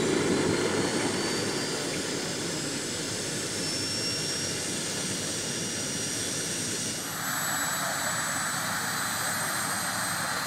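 Small gas-turbine engine of a large radio-controlled H120 Colibri scale model helicopter running on the ground, a steady rushing hiss with a high whine that rises slowly in pitch. About seven seconds in, the sound shifts abruptly to a brighter hiss.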